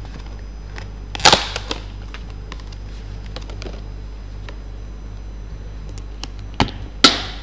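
Sharp clacks of thin polypropylene takeaway containers and lids being handled and set down on a table: one about a second in and two close together near the end, with a few faint ticks between them. A steady low hum runs underneath.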